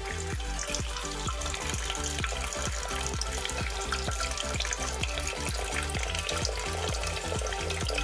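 Water falling in thin streams from the upper bowl of a small cement tabletop fountain into its lower basin: a steady splashing trickle that begins as the pump is switched on. Electronic background music with a steady beat plays throughout.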